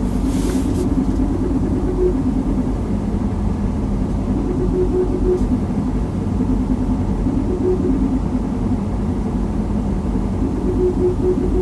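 Mazda CX-60 running, with steady low road and engine rumble and an unidentified abnormal hum that comes and goes every few seconds. The owner cannot tell where the noise comes from.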